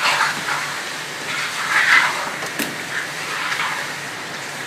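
Chicken and spice masala sizzling as it fries in a pot, with a spoon stirring through it in several swishes and one sharp click a little past halfway.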